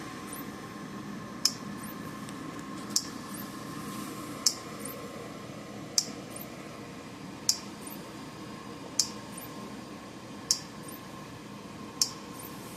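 Power Wizard PW5000XD electric fence charger pulsing under power, one sharp click every second and a half. It sounds healthy. A faint steady hum runs underneath.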